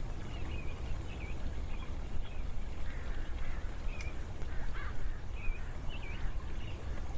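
Birds calling in short, scattered chirps and squawks over a steady low rumble.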